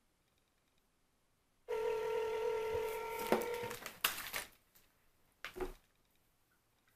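Telephone ringback tone through a smartphone's speaker, one steady ring of about two seconds starting nearly two seconds in, as an outgoing call rings. A few clicks and a short knock follow.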